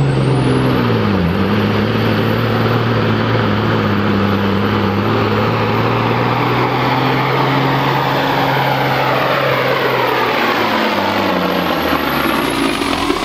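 International cabover semi tractor's diesel engine at full power, pulling a weighted sled. A steady heavy drone carries a high thin whistle that rises at the start. The engine note dips about a second in and falls away near the end as the truck is dragged down under the sled's load.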